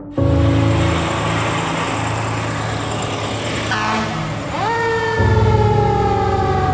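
Fire engine's engine running with loud road noise that starts suddenly just after the beginning; about four and a half seconds in, its siren rises quickly to a high tone and then slowly falls in pitch.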